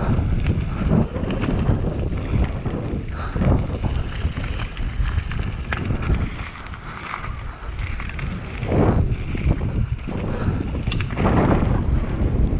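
Wind buffeting the microphone of a bike- or helmet-mounted action camera while a mountain bike descends a loose gravel trail at speed, tyres crunching over the gravel and the bike clattering over bumps, with a sharp click a little before the end.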